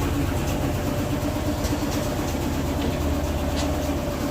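Maytag MVW6230HW3 top-load washing machine in its spin cycle, running at high speed: a steady low rumble with a steady hum over it.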